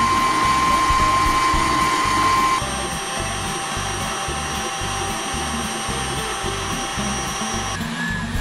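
Stand mixer motor running at high speed, its wire whisk whipping gelatin and hot sugar syrup into marshmallow fluff. Its steady whine drops to a lower pitch and gets a little quieter about two and a half seconds in. Background music with a steady beat plays along.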